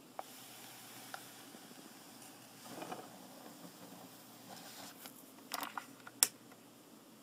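Faint handling noises from a hand at an aluminium project box and its twisted cable. There is a soft rustle about three seconds in, then a cluster of light clicks and taps near the end, the sharpest about six seconds in.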